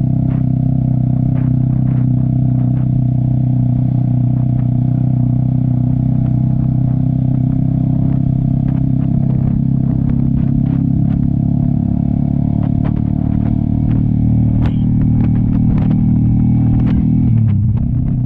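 Cafe 400 motorcycle with an SC Project aftermarket exhaust running at steady revs while cruising. Its note drops in pitch near the end.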